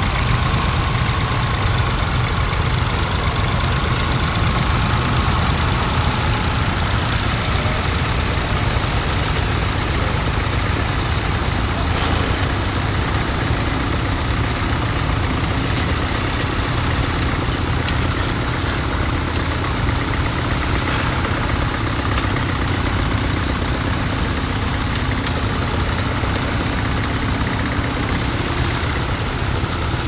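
Ferguson TE20 tractor's four-cylinder engine running steadily as it pulls a mounted plough.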